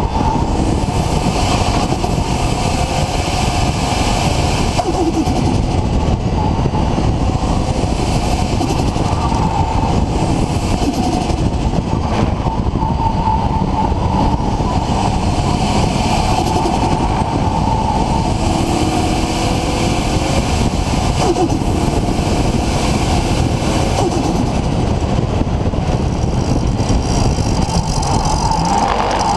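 Nissan RB26 straight-six with a big single Garrett GTX4088R turbo running loud and steady, with a few rises and falls in pitch.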